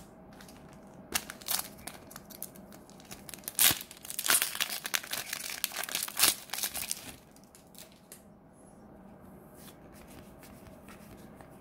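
Plastic trading-card booster pack wrapper being torn open and crinkled by hand: a dense run of sharp crackles lasting several seconds, then quieter handling of the cards near the end.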